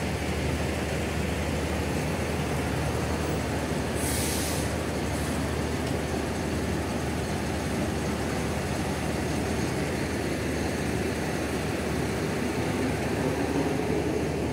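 Large diesel bus engine running steadily at low revs, with a short burst of hiss about four seconds in.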